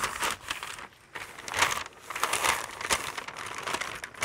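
Pink butcher paper rustling and crinkling in irregular bursts as it is folded and pressed down by hand to wrap a smoked ham.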